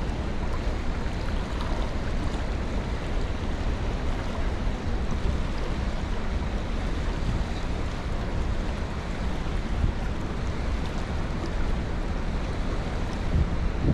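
Wind buffeting the microphone: a steady rumbling hiss with gusty low-end rumble and no distinct events.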